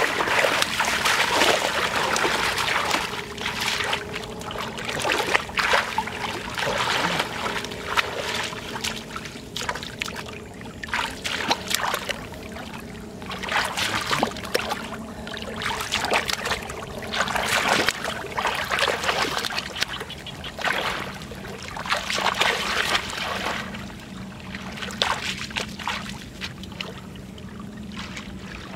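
Muddy paddy water splashing and sloshing as a man churns through it with his hands and legs while hand-fishing. It comes in irregular splashy bursts every second or so, easing off near the end.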